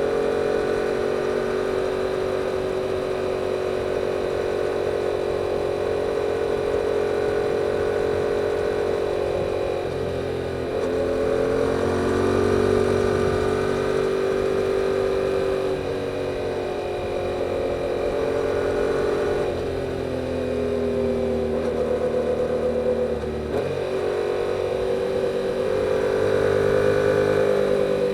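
Yamaha YZF-R7's 689 cc parallel-twin on the stock exhaust, running under way at a fairly steady pace. The engine note dips and resettles a few times.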